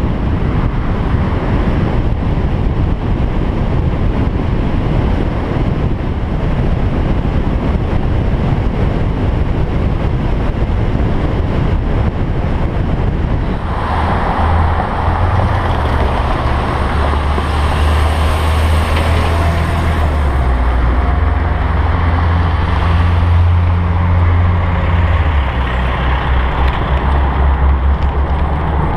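Wind rushing over a bike-mounted camera's microphone during a fast ride, then from about halfway through, street traffic with a strong low engine rumble from passing trucks and cars.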